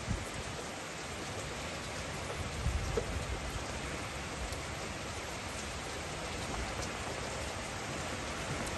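Steady, even hiss of noise, with a few low thumps about three seconds in.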